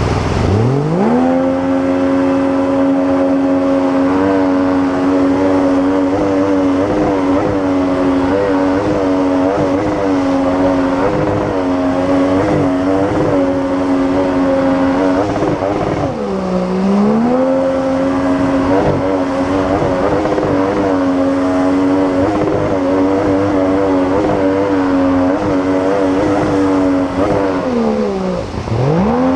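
Outboard engine driving a PVC water-jet boat upstream at high, steady revs. The revs climb in the first second, sag briefly about halfway through, and drop sharply near the end before picking up again, over the rush of river rapids.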